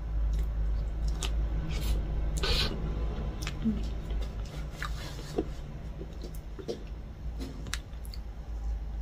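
Close-up eating sounds of chocolate cake: chewing and lip smacks with scattered small clicks, and a metal spoon cutting and scraping into the soft cake, over a steady low hum.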